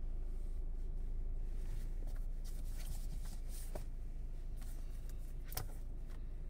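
Inside a stationary car, a steady low rumble from the vehicle, with scattered light taps of raindrops striking the windshield and roof, the sharpest about five and a half seconds in.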